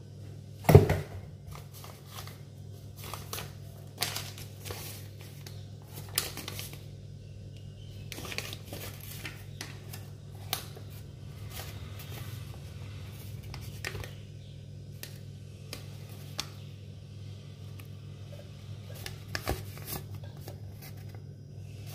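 Paper rustling and crackling as a folded instruction leaflet is opened out and handled, in short irregular bursts. A loud thump comes about a second in, and a steady low hum runs underneath.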